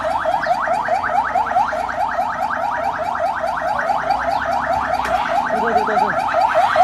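Ambulance electronic siren sounding a rapid yelp: short rising wails repeat about six times a second without a break.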